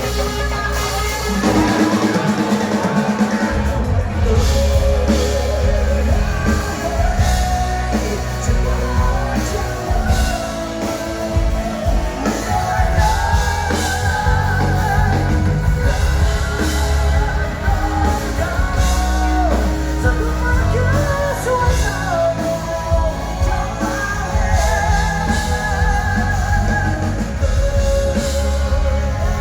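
Rock band music with a drum kit and a wavering lead melody over a heavy bass.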